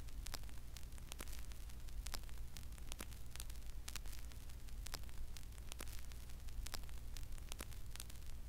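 Old-film soundtrack noise: a faint hiss with irregular crackling clicks over a steady low hum.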